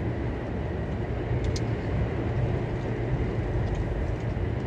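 Steady low drone of a truck's diesel engine and road noise, heard inside the cab while driving.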